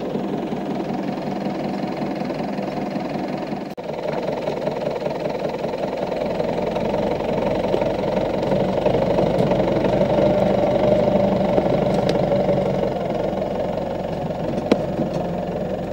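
Zetor tractor's diesel engine running steadily under load while it pulls a trailer stuck in mud out by a chain. The engine grows louder through the middle, then eases off.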